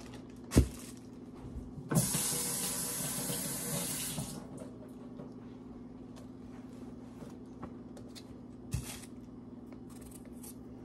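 Kitchen faucet running for about two seconds, then shut off, likely rinsing dirty potatoes. A single light knock comes just before it, and another near the end.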